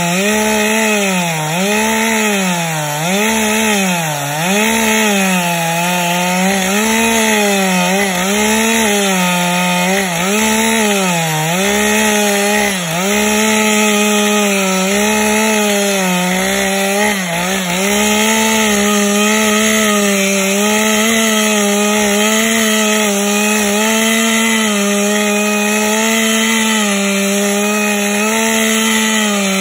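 Two-stroke chainsaw at full throttle ripping lengthwise through a large pine log. Through the first half its engine pitch dips and recovers about once a second as the cut loads it, then it runs steady.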